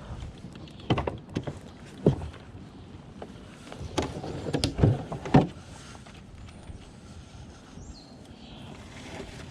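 Irregular knocks and thumps in a fishing boat: one about a second in, another near two seconds, then a louder cluster between four and five and a half seconds in.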